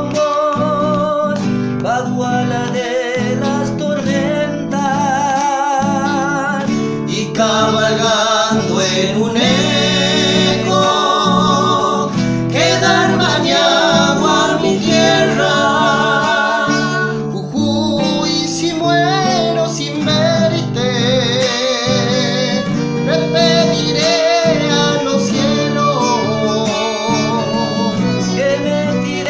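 Acoustic guitar strumming under male singing in a folk song, with a violin playing along near the end.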